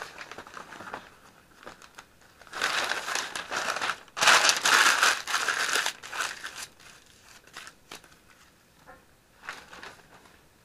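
Newspaper being crumpled and twisted into rolls by hand, with two long stretches of loud crinkling in the middle and lighter rustles around them.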